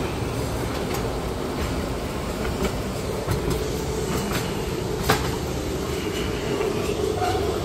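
Small park ride train running along its track: a steady rumble of wheels and motor with scattered clicks, and one sharp click about five seconds in.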